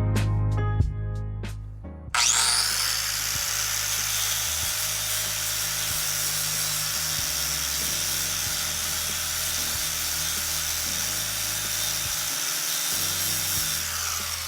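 Guitar music, then about two seconds in a 4-1/2-inch angle grinder with a 60-grit flap disc spins up and grinds the sheet-metal hatch down to bare metal: a steady hiss with a high whine. The grinder runs until near the end over the music's bass line.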